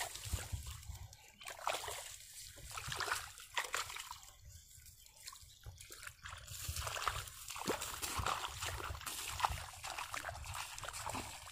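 Shallow paddy water splashing and sloshing in irregular bursts as hands grope in the mud and lift out a catfish, then bare feet wading through the water. The splashing goes quiet for a couple of seconds midway.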